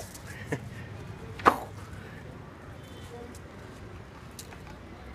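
Street puppy giving short, sharp barks: a faint yap about half a second in and a louder one about a second later.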